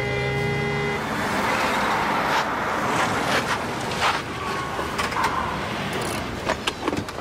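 Background music cuts off about a second in, giving way to the engine and tyre noise of cars driving up and pulling to a stop. A quick run of sharp clicks and knocks comes near the end.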